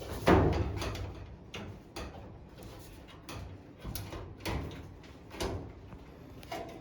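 Irregular knocks and clicks of dryer parts and tools being handled during reassembly, with one heavier thump just after the start and about seven lighter knocks after it.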